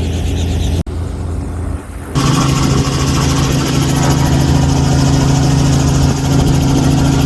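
Helicopter engine and rotor running steadily, a loud low hum. It cuts off sharply about a second in, returns quieter, then comes back louder and steadier from about two seconds in.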